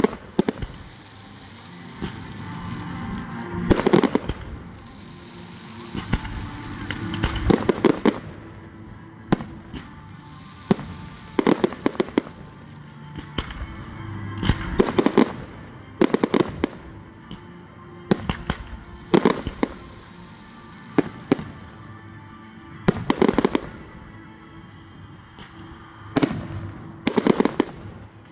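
Aerial firework shells bursting in a display's grand finale: sharp bangs every second or two, some in quick crackling clusters, with music playing underneath.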